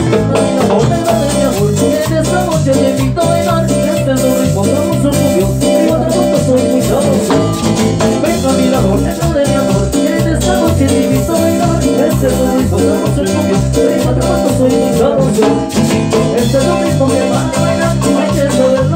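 Live band playing Latin dance music, loud through a PA, with a steady bass pulse, timbales and percussion, and singers on vocals.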